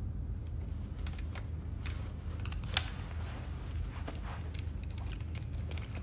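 A steady low room hum, with scattered small clicks and rustles of movement; the sharpest click comes about three seconds in.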